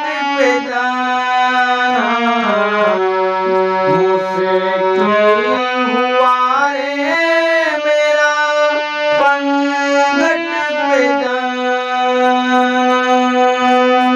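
Harmonium playing a bhajan melody, its reeds holding notes that step up and down with smooth joins between them.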